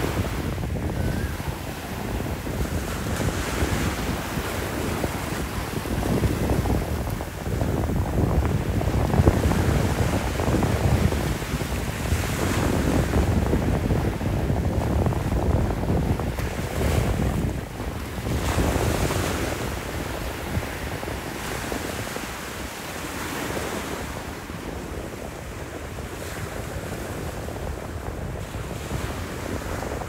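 Small waves washing onto a sandy beach, surging and easing every few seconds, with wind rumbling on the microphone. The surf gets quieter near the end.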